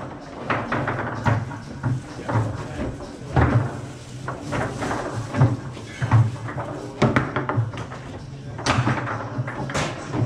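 Foosball table in play: sharp knocks and clacks of the ball and rod figures striking, coming irregularly several times a second to once every second or so.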